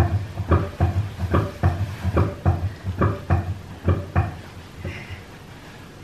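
Rhythmic dull thumps, about three a second, like repeated patting or knocking on a soft surface, stopping about four seconds in.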